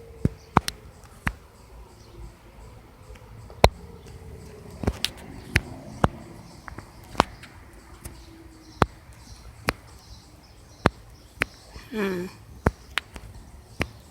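Tornado warning siren winding down faintly, its tone falling and fading over the first several seconds. Sharp irregular clicks or taps come through it, roughly one a second and louder than the siren, with a short warbling sound about twelve seconds in.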